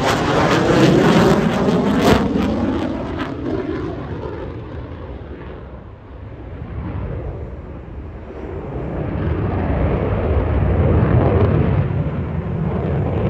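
F-35A Lightning II's single afterburning turbofan (Pratt & Whitney F135) as the jet flies a high-g display turn. It is loud and crackling at first, with a falling sweep in pitch, then fades about six seconds in and swells again as the jet comes back around.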